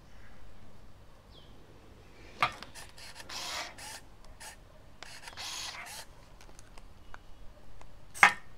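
Olympus IZM300 compact film camera being fired: a sharp shutter click about two and a half seconds in, followed by a short whir of its motor. A second motor whir comes around five and a half seconds, and a louder click comes near the end.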